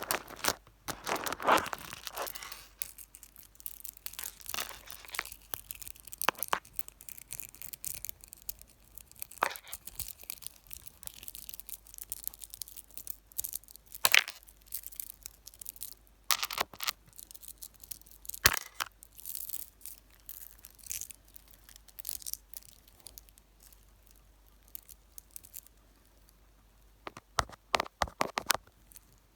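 Fingers touching, tapping and rubbing directly on a camera or microphone, making close crackly scratches and taps that come in clusters with quieter gaps, busiest near the end.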